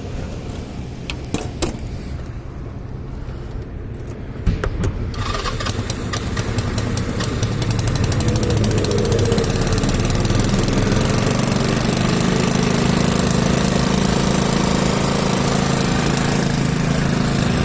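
Motorcycle engine: a low rumble and a few clicks, a sharp knock about four and a half seconds in, then the engine grows louder with quick firing pulses and settles into a steady idle. The rider reckons the idle speed needs raising a little.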